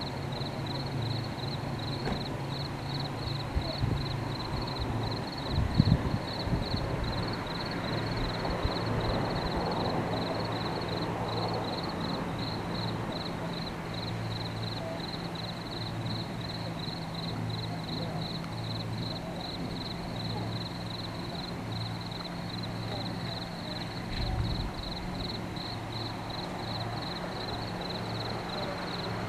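Night insects calling in a steady, high pulse of about three a second, over a low steady hum, with a few knocks about six seconds in.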